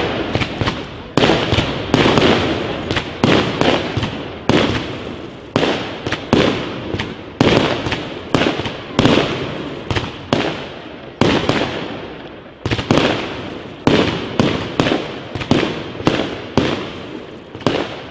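Aerial fireworks display: a continuous run of shell bursts, with bangs coming about every half second to a second, each one trailing off before the next.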